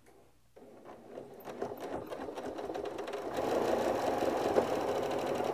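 Electric sewing machine stitching through several layers of quilt blocks and batting. It starts about half a second in and builds up speed and loudness over the next few seconds into a steady, rapid run of stitches.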